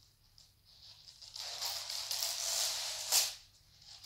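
Rustling as a tangled garland is worked onto the branches of a fir Christmas tree, in one long stretch with a sharper swish about three seconds in.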